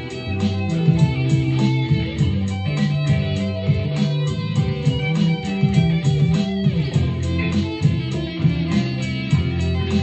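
Music: an electric guitar being played over a steady, even beat.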